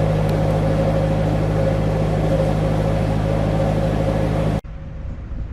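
Narrowboat engine running steadily with a low, even hum and a steady hiss over it. The sound cuts off abruptly about four and a half seconds in, giving way to a quieter engine hum.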